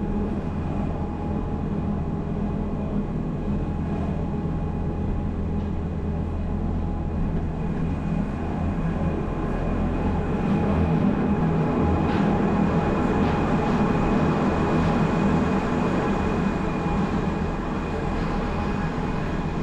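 Cogwheel train running downhill: a continuous low rumble of the running gear on the rack track, with a couple of thin steady whining tones over it, swelling a little about halfway through.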